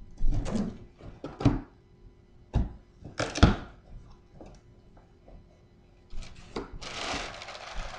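Cardboard box and its packaging being handled: several sharp knocks and thunks, the loudest about three and a half seconds in, then about a second of rustling near the end.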